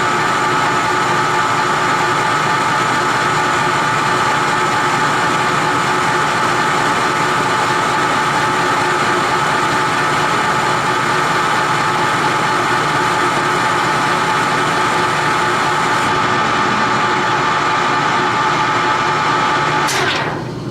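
Clausing Colchester 15x50 geared-head lathe running steadily with a constant gear whine, a high hiss dropping out about three-quarters of the way through. Near the end the spindle is braked and the machine sound dies away quickly.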